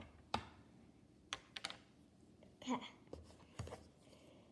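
Scattered light clicks and taps of small plastic play-dough cutters and containers being handled and put away, about seven irregular clicks in a few seconds.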